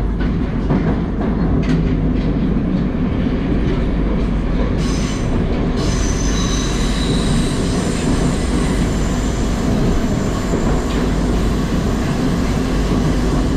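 An 81-760/761 'Oka' metro train running at speed, heard from inside the car: a loud, steady rumble of wheels on rails. A high-pitched wheel squeal joins it about halfway through.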